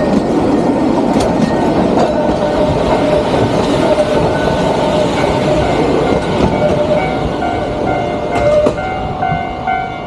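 A Sangi Railway Hokusei Line 762 mm narrow-gauge electric train runs past close by, its wheels rumbling and clattering over the rail joints, then slowly fades as it pulls away. From about halfway a level-crossing bell rings in a steady repeating ding that gets louder toward the end.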